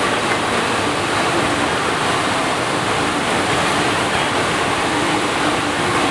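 Steady rush of water pouring over a FlowRider sheet-wave surf machine.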